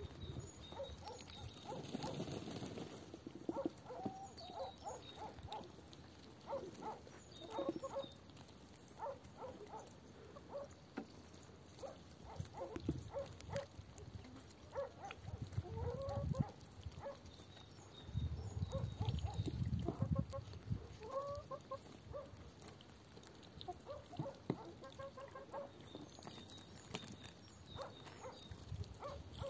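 Hens clucking softly over and over while they peck at scattered vegetable scraps, with short pecking taps. Bursts of low rumble on the microphone come about two seconds in and again from about eighteen to twenty seconds.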